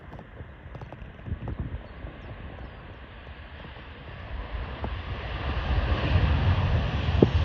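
TUI Boeing 737 jet engines on approach, a steady rushing rumble that grows louder about halfway through as the aircraft nears. Wind buffets the microphone in low gusts throughout.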